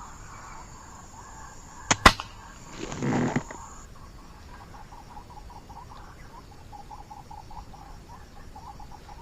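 An air rifle shot about two seconds in: a sharp crack with a second click right behind it. Then comes about a second of flapping and rustling as the hit waterhen drops into the vegetation. Later, a run of short repeated calls goes on quietly.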